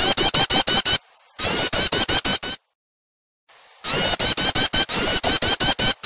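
Recorded perenjak (prinia) call played as a bird lure: rapid, high 'tetet tetet' chirps, about seven a second, in runs of one to two seconds with short breaks between them.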